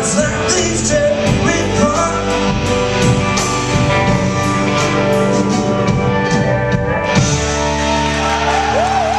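Rock band playing live: guitars, bass and drums with singing, closing on a held, ringing final chord about seven seconds in while a voice holds a wavering note.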